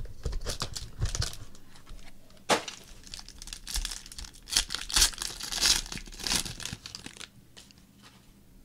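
Foil wrapper of a basketball trading-card pack being torn open and crinkled by hand: a run of quick rips and crackles, busiest in the middle, dying down near the end.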